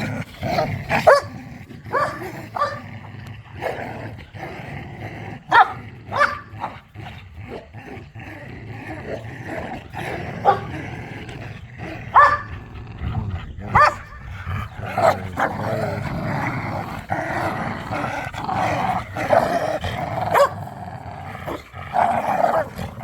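Dogs growling and snarling in rough play over a tug toy, with short sharp barks and yips throughout. The growling runs almost without a break through the last several seconds.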